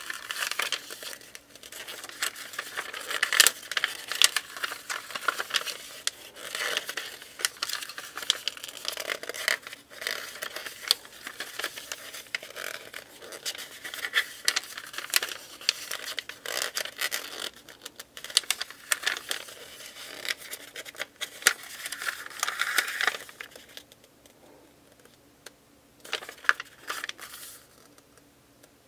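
Pages of a paper instruction booklet being turned and handled, rustling and crinkling with many small clicks; the rustling dies down near the end, leaving a few light clicks.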